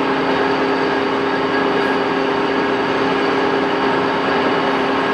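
Axelson heavy-pattern engine lathe running with its spindle at 274 RPM: a loud, steady machine drone from the 20 HP drive and headstock gearing, with a constant gear whine held at a few fixed pitches.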